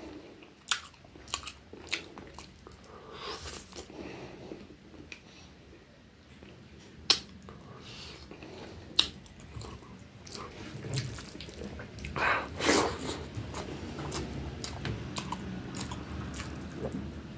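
Close-up chewing of a person eating a mouthful of rice by hand: wet mouth sounds with a few sharp smacks, and a louder stretch of chewing past the middle.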